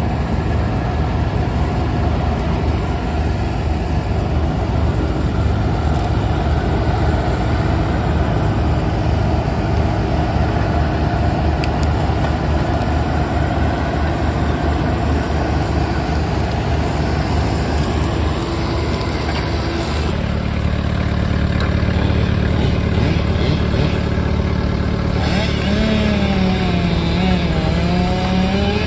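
Diesel engine of a Vermeer S925TX tracked mini skid steer running steadily while its grapple moves logs. Near the end, the engine pitch wavers up and down.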